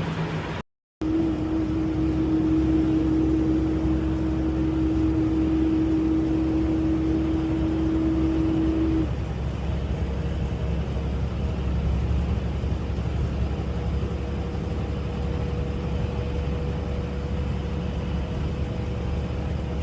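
Semi-truck running at highway speed, heard from inside the cab: a steady low engine and road drone. A held whine sits over the drone and shifts higher and fainter about nine seconds in. The sound cuts out briefly just under a second in.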